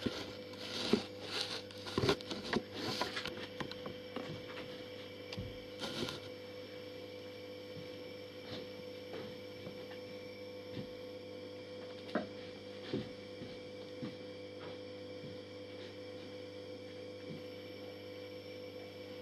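A steady electrical hum with scattered rustles and clicks, busiest in the first three seconds and again around six seconds in, then only occasional light ticks.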